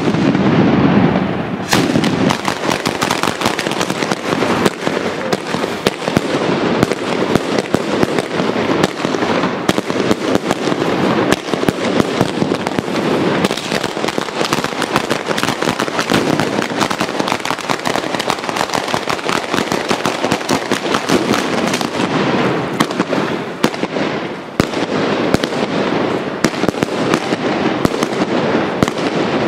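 A batteria, a long chain of firecrackers laid along the ground, going off in a dense, rapid, continuous crackle of bangs, with a brief lull shortly before the end.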